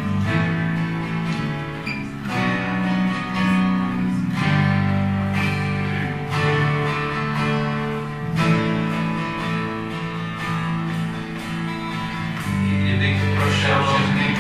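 Music: acoustic guitar strummed over sustained low chords that change every two seconds or so, growing fuller and brighter near the end.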